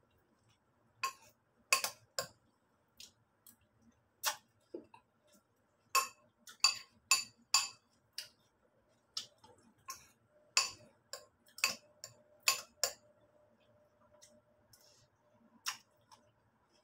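Metal spoon clinking against a ceramic cereal bowl while eating cornflakes with milk: about twenty sharp, irregular clinks, each with a brief ring, coming fastest in quick runs in the middle.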